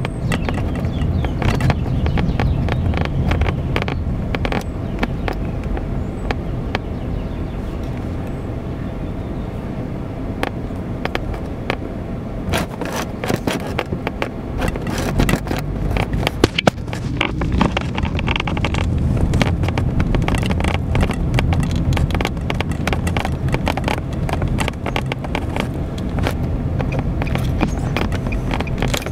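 Car driving slowly along a town street, heard from inside the cabin: a steady low engine and road rumble, with many clicks and knocks from about halfway through.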